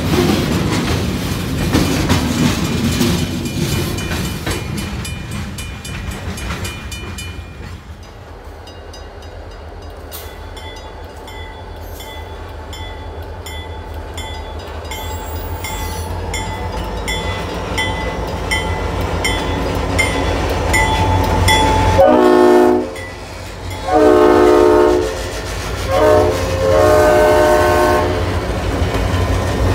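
Freight cars rumbling past, fading away. Then an approaching freight's lead locomotive, GP40 No. 381, sounds its Leslie RS-5T five-chime horn in four blasts (long, long, short, long), the grade-crossing signal, as the locomotives come close.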